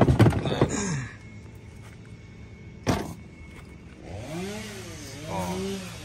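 A toolbox being set down and handled, with a loud clatter of metal tools in the first second and a single sharp knock about three seconds in.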